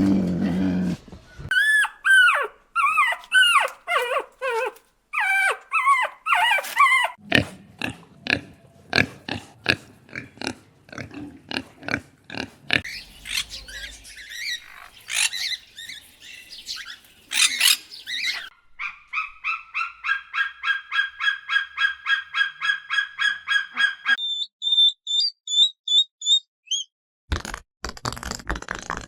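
A run of different animal calls, one after another. First come several falling pitched calls, then a string of short grunts or clicks, then a fast, even series of pitched notes lasting several seconds, then high chirps near the end.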